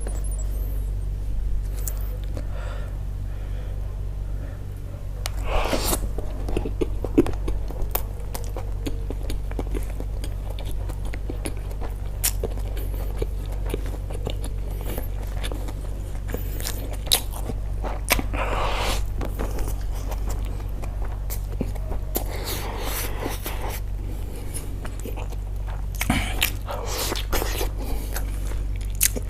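Close-miked eating: chewing and biting with many small clicks and scrapes, and a few longer, louder noisy spells, over a steady low hum.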